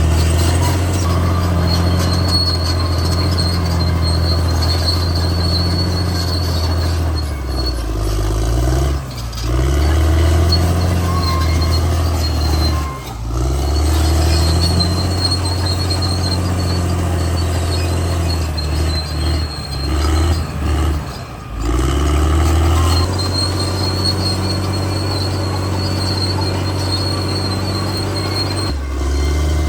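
Caterpillar D6R XL crawler bulldozer working: its diesel engine runs loud under changing load, with a high squeal that comes and goes. The engine note drops off briefly a few times.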